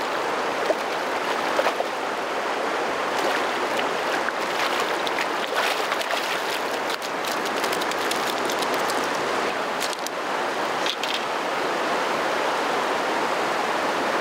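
Shallow river water running over gravel, a steady rush, with a small splash near the start as a grayling is released into the water and a few brief clicks later on.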